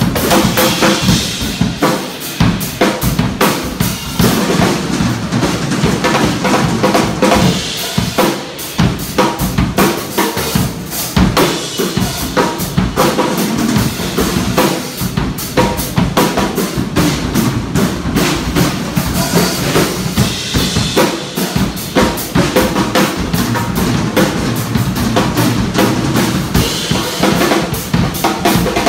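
Drum kit played in a fast, busy run of snare, bass drum, tom and cymbal strokes with no pauses, the snare an Arrow Custom Drum Co. 'Humble Snare'.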